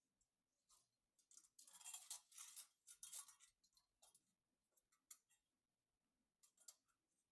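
Faint scattered small clicks, with a short rustling stretch from about one and a half to three and a half seconds in.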